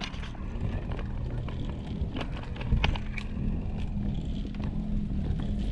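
Road bike rolling along a narrow lane: a steady low rumble, with a few light clicks and rattles.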